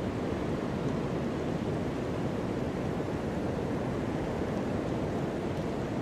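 Ocean surf: a steady rush of waves without distinct breaks.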